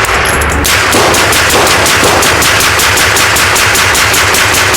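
Rapid gunfire: a long unbroken string of shots, about nine a second, starting just under a second in.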